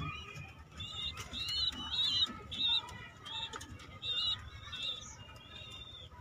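Birds chirping: a run of short, high chirps, about two a second, thinning out near the end.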